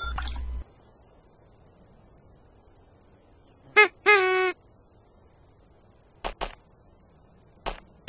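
A night-time cricket background chirring steadily. About four seconds in, a girl's voice makes a short excited sound and then a brief held one. Near the end come a few short taps.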